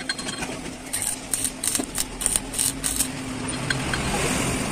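Welding-repair workshop sounds: scattered sharp metallic ticks and clicks over a steady low hum, with a steadier hiss building near the end.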